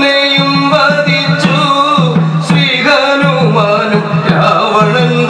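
Traditional Malayalam devotional music for the puppet play: a steady low drone under a wavering melody, with sharp percussion strokes scattered through it.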